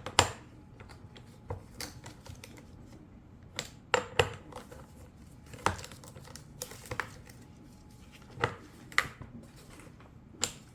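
Scattered sharp metallic clicks and clinks, about a dozen spread irregularly, of a wrench working the bar nuts of a chainsaw as they are tightened down after a chain change.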